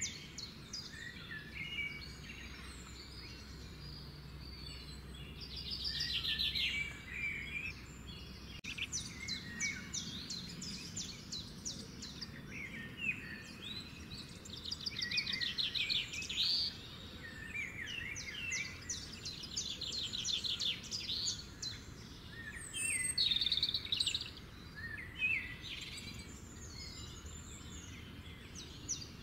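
Several birds chirping and singing, with quick rapid trills and short chirps in clusters every few seconds. A faint steady low hum lies underneath.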